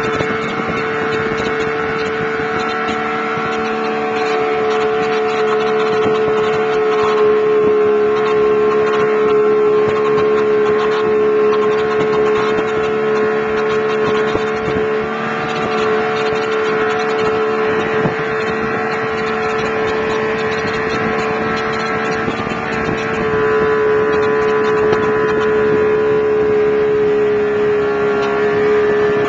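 Outboard motor running steadily at speed while towing, a loud, constant engine note that dips slightly now and then.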